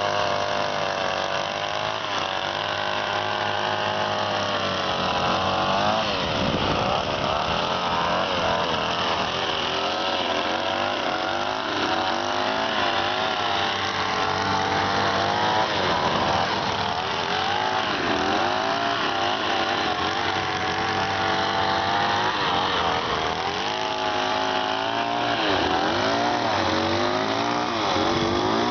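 Small two-stroke brush cutter engine running steadily, its pitch rising and falling over and over as the blade bites into grass and frees up again.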